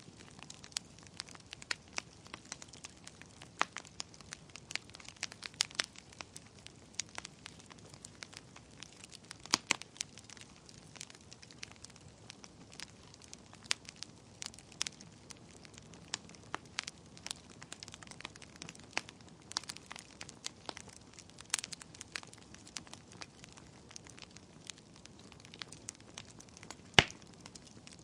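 Wood fire burning in a fireplace: irregular sharp crackles and pops over a low steady hiss, with one loud pop near the end.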